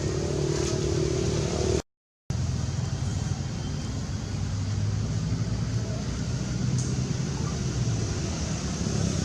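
Steady low rumble of a vehicle engine running, cut to total silence for about half a second about two seconds in.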